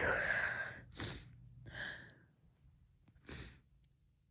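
A woman stifling sneezes with heavy, gasping breaths: four short, breathy, hissing bursts, the first the loudest, then weaker ones about a second apart.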